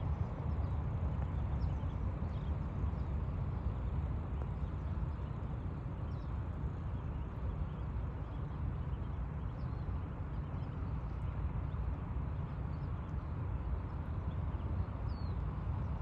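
Steady low rumble with faint, short high peeps from ducklings several times.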